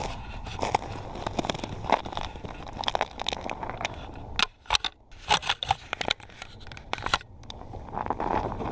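Snow and ice crunching and scraping on a frozen lake, heard as irregular sharp crackles that bunch together in a dense run around the middle.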